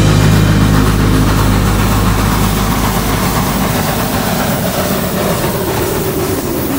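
A train locomotive's engine running with a steady low drone that slowly grows quieter.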